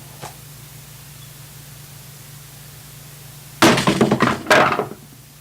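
A brief click, then loud crashing impacts in two bursts about three and a half and four and a half seconds in, like something being smashed.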